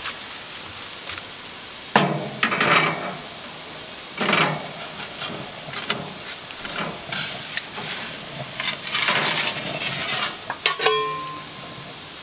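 Metal pizza peel scraping and clattering against the oven's stone floor and steel front lip as a pizza is slid in, in several short scrapes, with sharp clinks and a brief metallic ring near the end, over a steady hiss.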